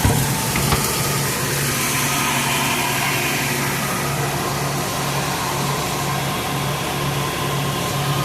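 A diesel engine of farm harvest machinery running steadily with a constant hum. There are a couple of knocks about a second apart near the start.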